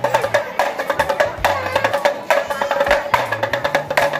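Damru, the small two-headed pellet drum of a monkey show, rattled by twisting the wrist: quick sharp strokes in short bursts, about two or three a second, each with a short drum-head ring.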